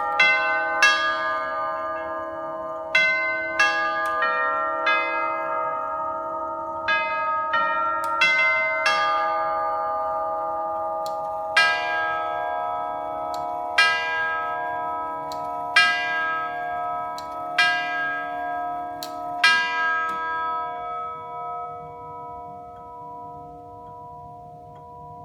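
A Winterhalter & Hofmeier five-tube grandfather clock, circa 1920s, chiming. Its hammers strike the brass tubes in a quick melody for about the first nine seconds. After a short pause come five single strokes about two seconds apart, striking the hour, and each note rings on and fades slowly.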